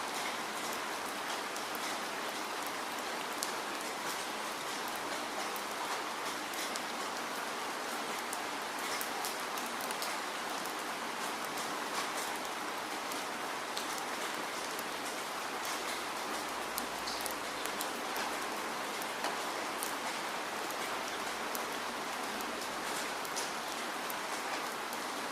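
Steady rain falling, an even hiss with many individual drops ticking as they hit a surface.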